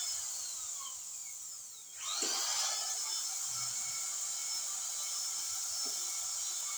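Metal lathe running: its whine winds down over the first two seconds, then it starts again and quickly rises to a steady running whine.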